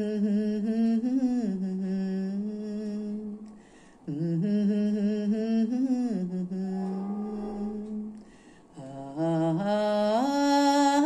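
A woman's voice singing the melody wordlessly, with no accompaniment, in three long held phrases with a slight waver; the last phrase climbs higher.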